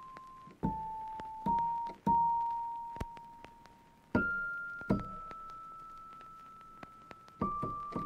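Background music: a slow melody of single keyboard notes, each struck and left to ring and fade, about six notes in all.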